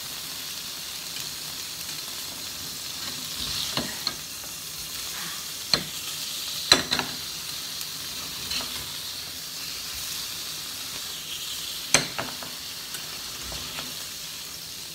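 Cubes of extra firm tofu sizzling steadily in safflower oil in a frying pan, while a metal slotted spatula scrapes and clicks against the pan several times as the cubes are turned.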